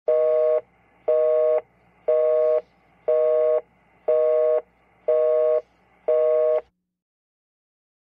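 Cellphone busy signal: a two-note beep, half a second on and half a second off, repeating seven times before it stops. It signals that the called line is engaged.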